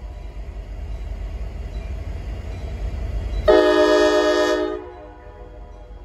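Nathan Airchime K5LA five-chime locomotive horn giving one loud blast about three and a half seconds in, lasting just over a second before cutting off. Before the blast, a low rumble from the approaching train builds up.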